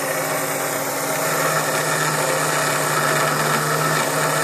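Small cooling fans inside a Check Point UTM-1 570 appliance running with a steady, unchanging hum. The fans are faulty and noisy, and the owner thinks they may need oil or cleaning out.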